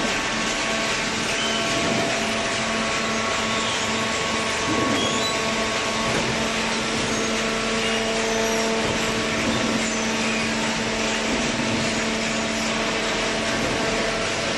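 Horizontal hydraulic cardboard baler running: a steady machine hum with several constant tones over an even wash of mechanical noise, typical of its electric motor and hydraulic pump.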